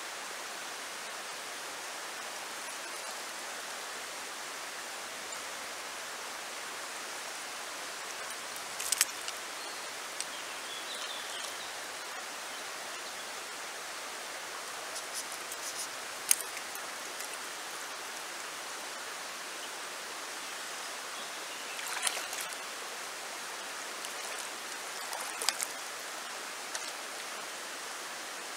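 Shallow river water running over stones, a steady rushing hiss, with a few short sharp clicks scattered through it, the loudest about nine and sixteen seconds in.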